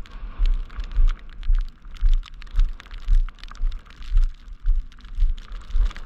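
Footsteps of someone walking at a steady pace on a snowy, slushy sidewalk: about two low thuds a second, with light gritty clicks from the snow underfoot.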